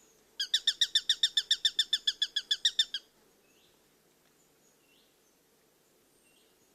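A bird calling a rapid, even series of about twenty loud notes, some eight a second, for about two and a half seconds before it stops. Faint short chirps from other birds continue afterwards.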